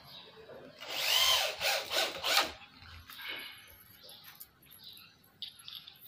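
Handheld electric drill fastening a steel hinge to the edge of a wooden door, run in three short trigger bursts, its motor whine rising and falling each time.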